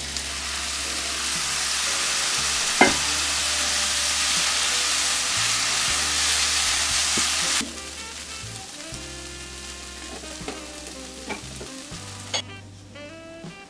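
Loud sizzling as water hits a hot frying pan of seaweed stalks being stirred with chopsticks; the sizzle cuts off abruptly about seven and a half seconds in. After that, soft background music with a few light taps.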